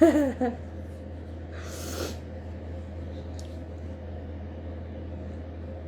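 A person's short pitched vocal sound right at the start, then a short noisy breath about two seconds in, over a steady low hum.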